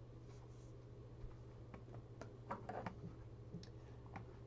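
A few faint, scattered computer keyboard clicks over a low steady hum.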